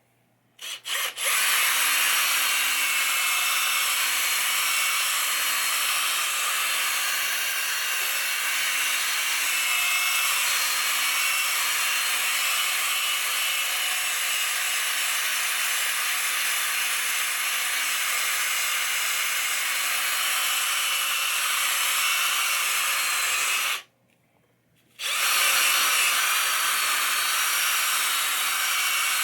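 Electric drill spinning a polishing pad to buff a pinball playfield with plastic polish, running steadily. It stops for about a second near the end, then starts up again.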